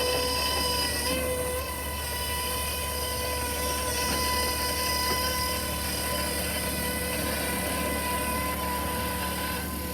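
Mammut SK650 electric skid steer working, its electric drive giving a steady whine made of several even tones over a low hum.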